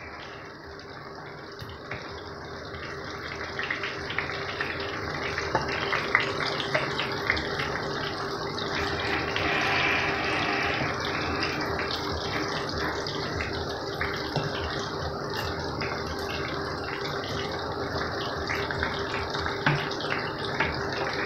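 Breaded eggplant sticks frying in hot oil in a frying pan: a dense, steady sizzle full of fine crackles, growing louder over the first several seconds. A faint steady hum runs underneath.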